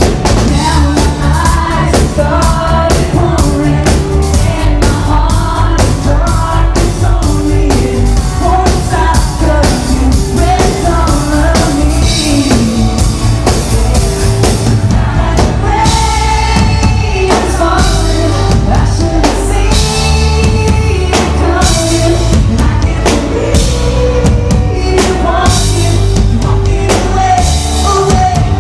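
Live pop-rock band playing, with lead vocals over drum kit, bass and guitars, loud and distorted as recorded from the audience.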